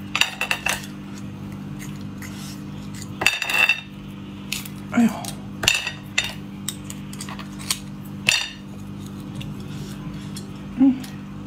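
Cooked oyster shells clacking and scraping against each other and a ceramic plate as they are prised open by hand: a handful of sharp clicks and short clatters spread through, over a steady low hum.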